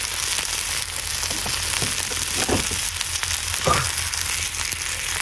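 Fried eggs and a thick slab of bacon sizzling in olive oil in a cast-iron skillet over a wood fire: a steady frying hiss with a few short crackles.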